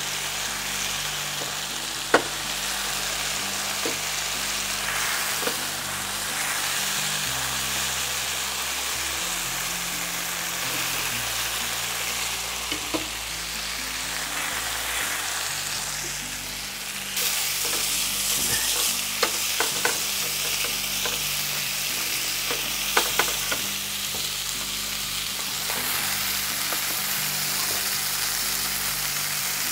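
Chicken breast pieces sizzling as they pan-fry in a little oil in a nonstick skillet. A few light clicks of utensils come against the pan, mostly in the second half.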